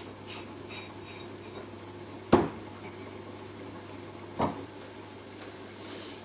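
Steady low hum of pots cooking on a stove, broken twice by sharp knocks of kitchenware being handled, the first and louder about two seconds in and the second two seconds later.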